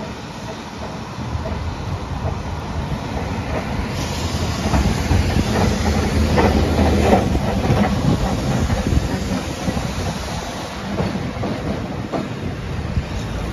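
Vintage electric tram rolling past on street track, its wheels clicking and clattering over the rails. Loudest as it passes about halfway through, then fading as it moves away.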